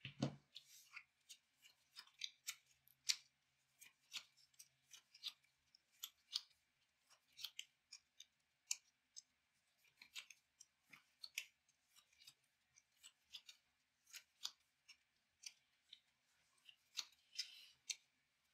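Trading cards handled and set down during play: faint, irregular sharp clicks and snaps, about one or two a second.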